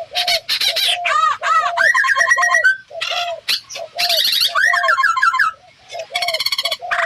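Birds calling, several voices at once: a low arched note repeated over and over, with higher chirps, whistles and rapid trills layered over it, in bursts with brief pauses.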